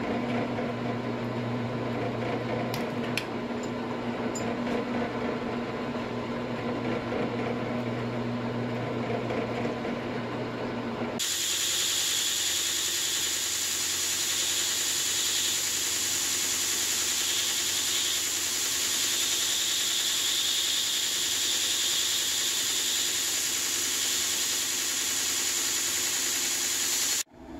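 Drill press motor running, its bit working a small brass plate held in a vise, with a few sharp ticks about three seconds in. About eleven seconds in the sound changes abruptly to a belt grinder running, a steady hiss with a high whine, as a small brass piece is ground against the belt. It cuts off suddenly near the end.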